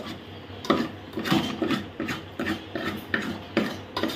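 Steel spoon scraping and knocking against the inside of an aluminium pot, about three strokes a second, as boiled potatoes are mashed into a thick masala.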